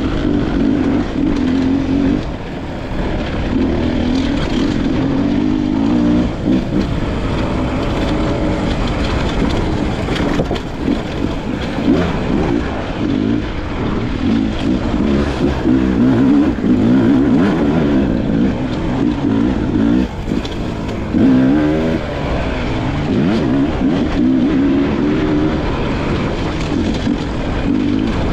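Beta 300RR two-stroke single-cylinder dirt bike engine being ridden, revving up and down as the throttle is worked, and falling off briefly several times when the throttle is closed.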